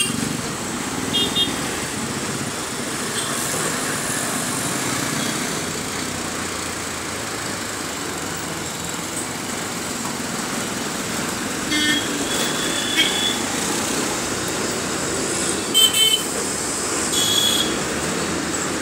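Busy city street traffic heard from a moving bus: a steady engine and road noise, with several short horn toots from the surrounding vehicles, most of them in the second half.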